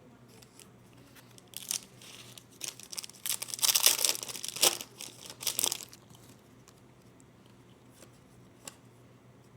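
A trading-card pack's plastic wrapper being torn open and crinkled, in rustling bursts over several seconds, then a few faint handling ticks.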